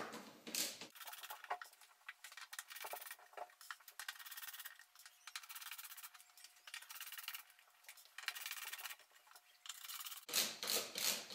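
Faint rubbing and scraping with light clicks: hands working over an iMac's display and its frame, and a screwdriver at the frame's screws.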